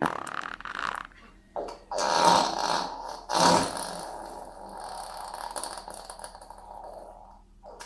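A series of fart sounds: a few short rasping blasts, then a long one that trails off and fades over about four seconds.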